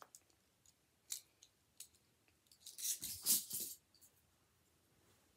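Metal handcuffs clicking and jingling as a hand is worked out of them: a few single clicks, then a burst of rattling about three seconds in.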